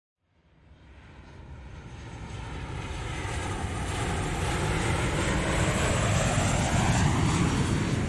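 Opening swell of an electronic track: a rushing, whooshing noise fades in from silence and builds steadily louder over about seven seconds, its tone sweeping down and then up, and eases off near the end.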